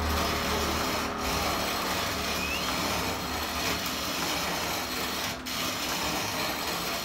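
Hand-cranked metal mill grinding coffee beans: a steady grinding, rasping noise as the crank turns, with two brief breaks.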